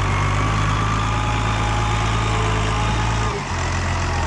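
Diesel farm tractor's engine running steadily with a faint whine above it. About three seconds in, the engine note drops and the whine stops.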